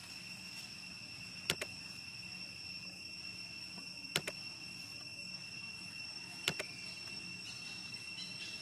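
Steady high-pitched insect drone, cricket-like, holding one even pitch. Three sharp double clicks sound over it, spaced a few seconds apart.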